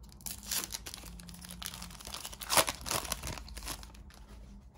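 Wrapper of a basketball trading card pack being torn open and crinkled by hand: a run of crackles, loudest about two and a half seconds in, thinning out near the end.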